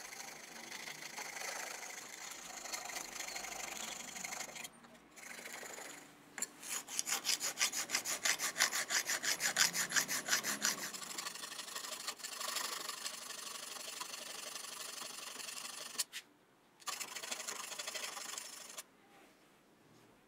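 Metal-on-metal rasping of a round file worked in and out of the bore of a small steel sleeve held in a vise. The strokes run fastest, about four or five a second, from about a third of the way in to halfway, with a few brief pauses, then stop shortly before the end.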